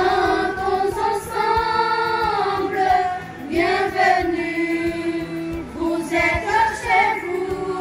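A group of teenage schoolgirls singing together, holding long drawn-out notes that rise and fall in pitch.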